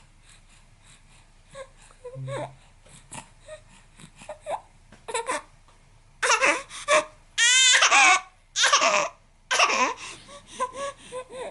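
Baby crying after being startled by a loud sneeze: soft whimpers at first, then loud wavering wails from about six seconds in, settling back to whimpers near the end.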